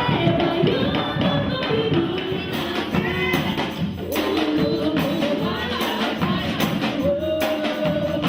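Afro-Brazilian percussion group playing drums and hand percussion under a sung chant, the voice holding long notes. Sharper percussion strokes come in more strongly about two and a half seconds in.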